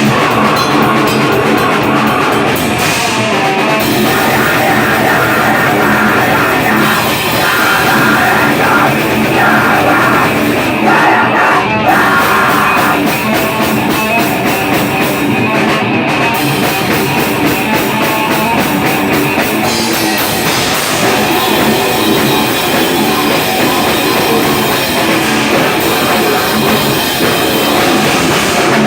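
A rock band playing live and loud, with electric guitars over a drum kit.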